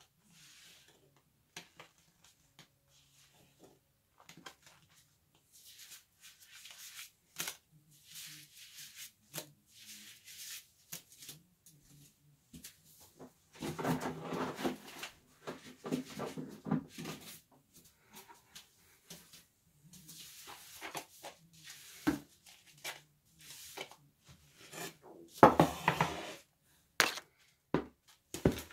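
Intermittent handling noises: light knocks, clicks and rustles, busiest about halfway through and again near the end, with a few sharper knocks.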